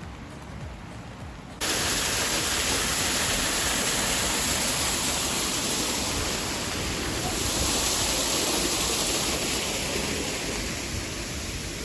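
Steady loud rush of a waterfall, cutting in suddenly about a second and a half in over quieter rain.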